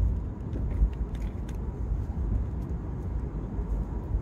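Steady low road and tyre rumble inside a Tesla electric car's cabin as it drives along at speed, with a few faint clicks.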